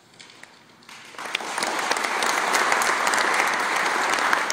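Audience applauding: the clapping starts about a second in and quickly builds to a steady, loud round of applause.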